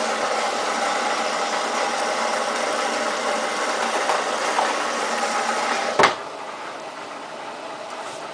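Samsung WF8804RPA washing machine at the start of its main wash, making a steady rushing noise with a faint whine in it. About six seconds in the noise cuts off with a sharp click, leaving a quieter steady hum.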